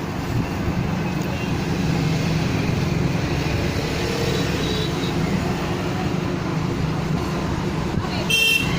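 Steady rumble of road traffic, with a short high-pitched sound near the end.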